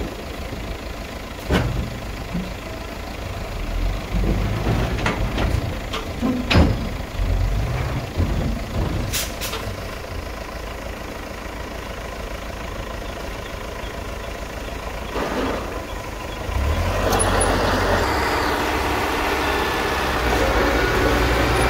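Diesel engine of a Hyundai dump truck running as its raised bed empties soil, with scattered clanks and thumps in the first half from the swinging tailgate and falling dirt. About three-quarters of the way in, a small crawler bulldozer's engine gets louder as it pushes into the soil pile.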